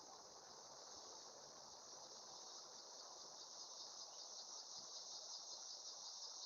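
Steady chorus of insects, crickets or katydids trilling in a continuous high-pitched band, fairly faint.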